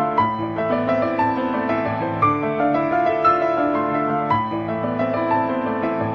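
Instrumental background music: a melody of held, overlapping notes with no voice.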